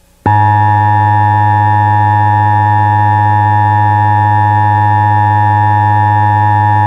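Steady electronic alert tone, one unwavering pitch with many overtones, starting a moment in: the attention signal that opens a CONELRAD civil defense emergency broadcast.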